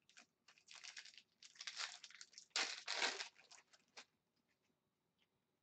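Foil hockey card pack wrapper being torn open and crinkled by hand, in a run of short rustles that are loudest about two and a half seconds in and stop about four seconds in.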